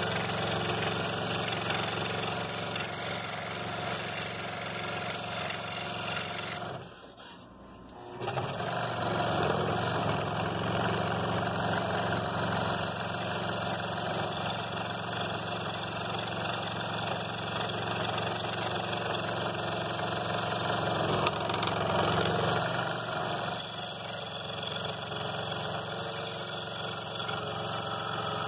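Scroll saw running, its fine blade cutting small interior openings in 3/4-inch pine. The sound drops out for about a second and a half around seven seconds in, then runs steadily again.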